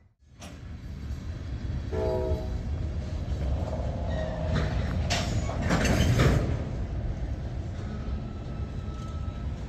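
Norfolk Southern freight train's boxcars and covered hopper cars rolling past, a steady rumble of steel wheels on rail. A brief horn note sounds about two seconds in, and the rattle of the cars is loudest around five to six seconds in.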